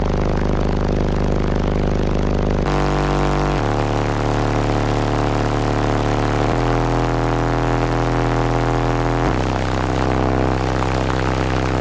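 A wall of four American Bass VFL 18-inch subwoofers playing bass-heavy music very loud, heard from inside the truck's cab. Deep sustained bass notes step to a new pitch every second or few, with a dense buzzing haze over them.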